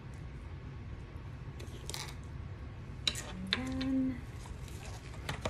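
A metal fork clinking and scraping against a ceramic bowl while mixing spaghetti squash, a few light clicks and knocks, with a steady low hum underneath. A short low-pitched tone sounds about three and a half seconds in and is the loudest moment.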